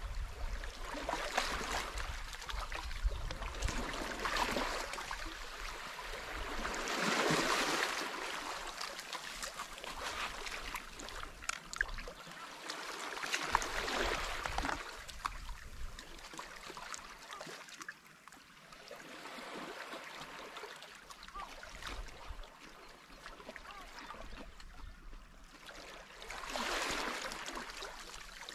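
Small sea waves washing in on a sandy, rocky shore, the wash rising and falling every several seconds, with a few light clicks.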